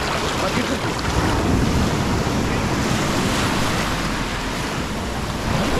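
Shallow sea surf washing in and swirling over the sand, a steady rush of water with wind rumbling on the microphone.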